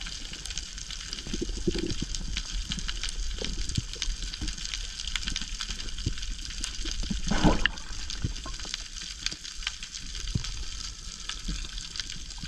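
Underwater ambience on a shallow coral reef, heard through a submerged camera: a steady crackle of many fine clicks, typical of snapping shrimp, over a low rumble of moving water. One brief, louder rush of water about seven and a half seconds in.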